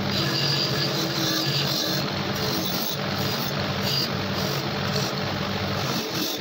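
Electric bench-grinder motor running steadily with a metal TT pistol part pressed against its spinning wheel: a steady motor hum under a rough grinding noise as the metal surface is worked.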